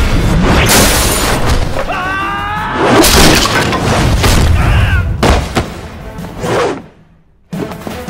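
Kung fu fight-scene soundtrack: dramatic music under glass and objects shattering and heavy impact hits, several sharp crashes close together. The sound drops out briefly about seven seconds in, then starts again.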